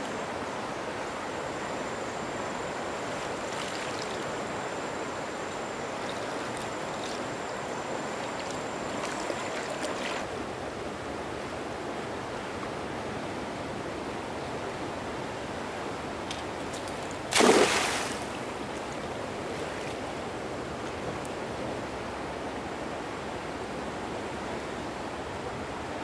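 Steady rush of flowing river or stream water, with a faint high steady tone over roughly the first ten seconds. About two-thirds of the way through, a single short burst louder than the rest stands out.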